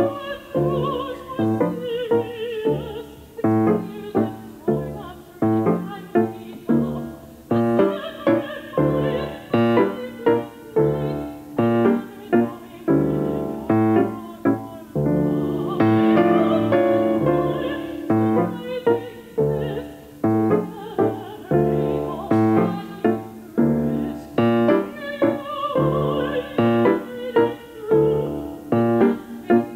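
A female opera singer sings with vibrato over grand piano accompaniment. The piano plays a steady stream of repeated chords.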